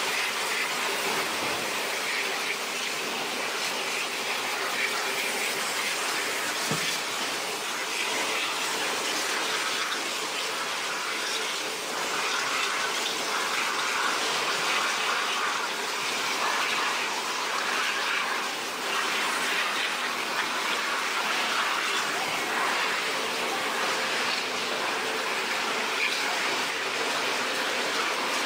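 Steady rushing of water spray and machinery on a fish processing line, where hand-held hoses are used to clean gutted fish.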